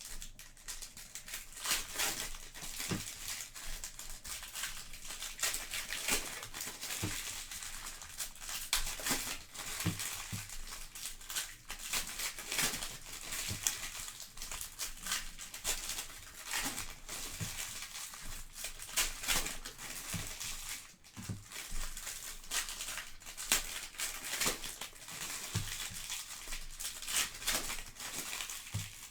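Foil trading-card pack wrappers being torn open and crinkled by hand, a dense run of crackles, with soft knocks as packs and cards are handled.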